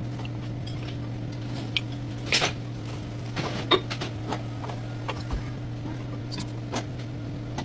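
Scattered metallic clinks and taps of tools and brake parts being handled during a brake pad change, over a steady low hum; the sharpest clinks come about two and a half and nearly four seconds in.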